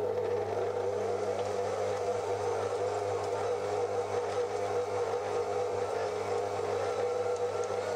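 Planetary Mixmaster stand mixer running steadily, its wire whisk beating drained curdled-milk curds in a steel bowl to whip them smooth into cream cheese. A constant motor hum with no change in speed.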